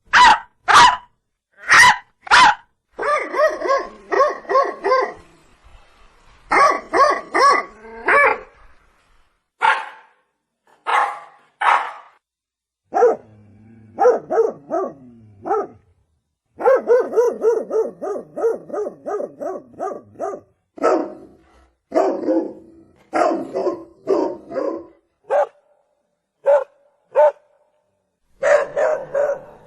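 Dog barking repeatedly: single loud barks alternating with fast runs of several barks in quick succession, with short pauses between.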